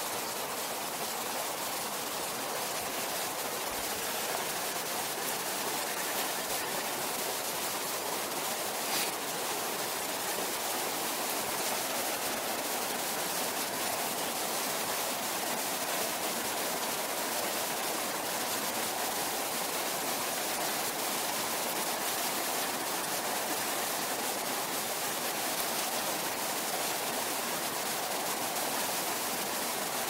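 A mountain stream's riffle rushing steadily over rocks, with one faint tick about nine seconds in.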